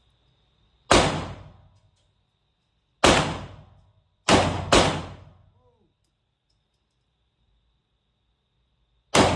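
Five 9mm pistol shots from a Taurus G3C, fired singly at uneven intervals, two of them about half a second apart near the middle, each with a short echoing decay in the enclosed indoor range.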